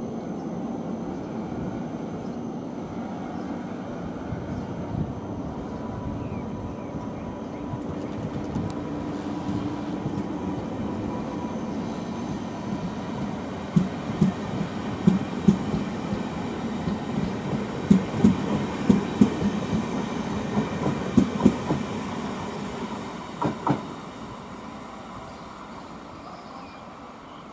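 A train running on the track with a steady rumble. A run of sharp wheel clacks over rail joints sounds through the middle and second half, and the train fades away near the end.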